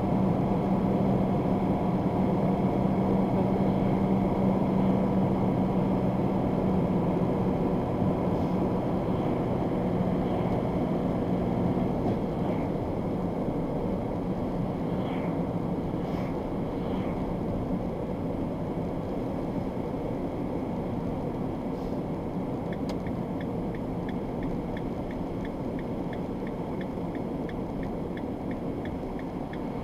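Steady drone of a moving vehicle heard from inside the cab: engine and tyre noise on a slushy road, with a humming tone that fades out about twelve seconds in as the level slowly drops. About three-quarters of the way through, a turn signal starts ticking evenly, about three clicks a second.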